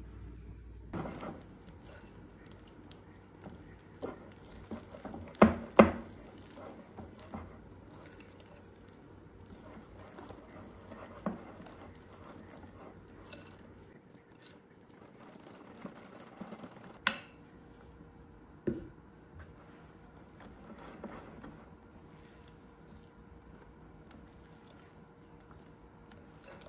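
Wire hand whisk stirring thick batter in a glass bowl, with scattered knocks and clinks of the whisk against the glass. The loudest are two knocks close together about five to six seconds in and a sharp ringing clink past the middle.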